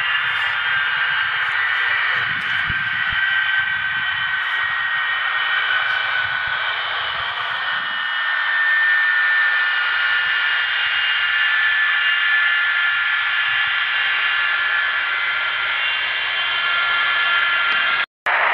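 Avro Vulcan XH558's Olympus turbojets running on the ground, heard as a steady high whine of several close tones over a rushing roar. The sound cuts out for a split second near the end.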